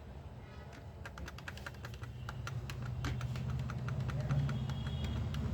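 Computer keyboard keys tapped rapidly over and over, several clicks a second, while a repaired laptop USB port is being tested. A low hum runs underneath and grows louder about three seconds in.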